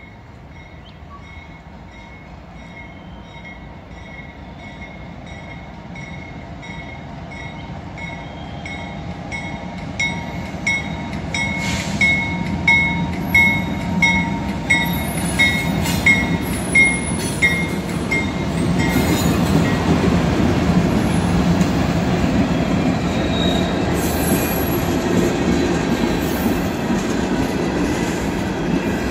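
Level-crossing bell ringing in a steady rhythm as a CSX freight train's diesel locomotive approaches and passes, its rumble growing steadily louder. After that, the freight cars roll past with a steady rumble of wheels on rail and brief high-pitched wheel squeal.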